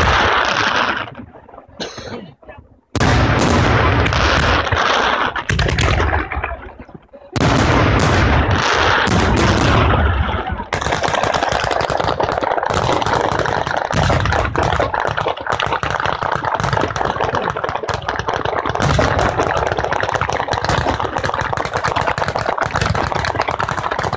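Batteria alla bolognese firework display: rapid strings of firecracker reports that go off like machine-gun fire. Three loud bursts come with short pauses between them, then from about ten seconds in the cracks and bangs run on without a break.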